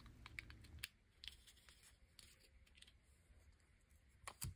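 Near silence with faint clicks and rustles from the plastic parts of a cordless soldering iron being handled and pulled apart, ending in one sharper click about four and a half seconds in.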